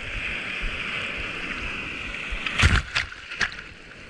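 Whitewater foam fizzing and rushing around a surfboard being paddled through broken waves, with a loud splash about two and a half seconds in and two smaller splashes just after.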